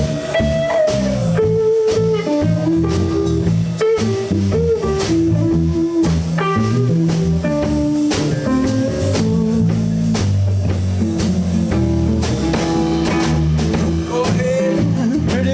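Live blues band playing an instrumental passage: a guitar plays a single-note lead with bending notes over bass guitar and drum kit.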